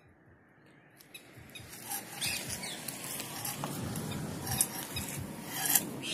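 Footsteps in open slippers scuffing on a paved road, about two steps a second, over noise that grows louder about a second in.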